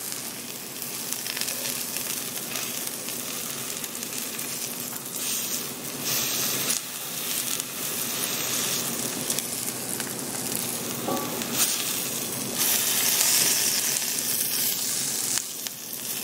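Lemon slices frying in butter in a cast iron skillet, a steady sizzle that swells louder twice.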